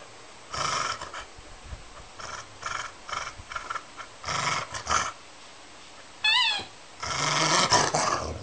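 Dog growling and snarling in bursts as a hand reaches for the toy under its paw, a resource-guarding warning. There is a brief run of quick high calls about six seconds in, and the longest, loudest snarl comes near the end.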